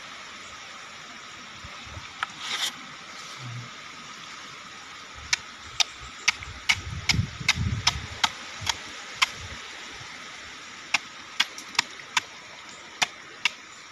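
Tilapia feeding at the pond surface on termites: a run of sharp, irregular pops and smacks as the fish snap them from the water, with a few low thuds in the middle.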